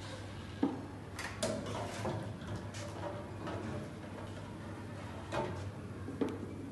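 Stainless-steel wire basket knocking and scraping against a stainless-steel sous vide tank as it is lowered in and pressed down: a string of light metal clanks, the sharpest about half a second in, over a low steady hum.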